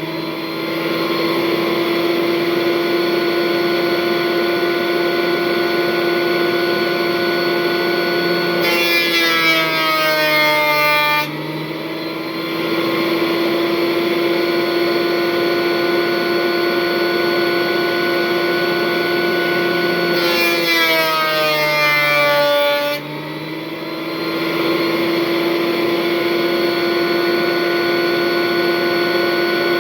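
Thickness planer running with a steady motor whine. Twice, about 9 and 21 seconds in, the pitch sags for a couple of seconds under load as a board feeds through the cutterhead, then recovers.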